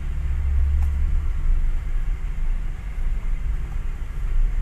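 Low rumble of a car's engine and road noise heard inside the cabin while driving, steady and easing slightly after about a second and a half.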